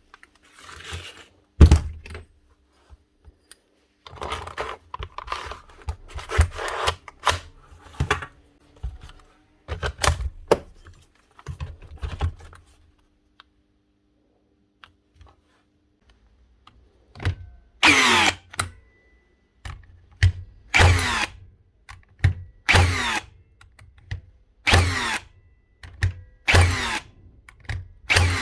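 Hikoki NR1890DC cordless nail gun firing repeatedly in the second half, about one shot a second, each a sharp bang followed by a falling whine. Before that, irregular clicks and clatter of the tool being handled.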